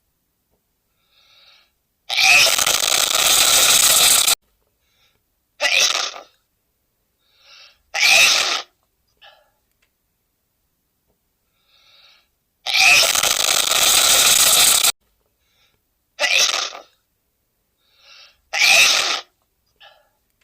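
A man sneezing over and over: a long, loud sneeze, then two short ones, with faint quick breaths in between. The same sequence sounds twice, about ten seconds apart.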